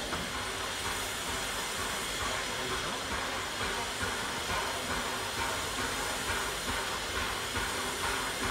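Peppercorn A1 steam locomotive Tornado pulling away slowly with a train, its three-cylinder exhaust chuffing in a regular rhythm over a hiss of steam.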